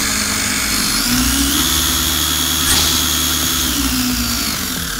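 Makita DDF451 18 V brushed cordless drill-driver running with no load, squeezed on the trigger: its motor and gearbox whine rises in pitch over the first second and a half, holds steady, then falls near the end as the trigger is eased off, showing the variable speed from zero.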